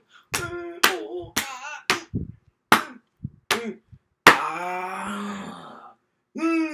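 A young man making fighting sound effects with his voice: a rapid run of short, sharp vocal hits and grunts, then a long strained yell about four seconds in and a short cry near the end.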